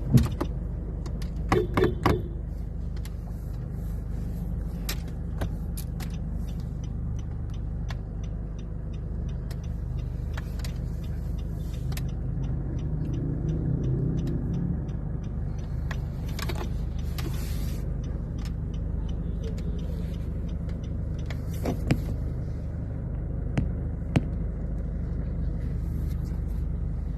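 Car engine running with a steady low rumble, with scattered sharp clicks and knocks, the loudest just at the start and about two seconds in.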